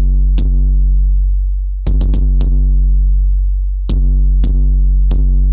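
Synthesized 808-style kick drum from the FabFilter Volcano 3 plugin, struck three times about two seconds apart, each with a long sub-bass boom. The boom comes from a self-oscillating high-pass filter resonance held at one steady pitch rather than dropping, tuned to a musical note. Short sharp clicks sound between the kicks.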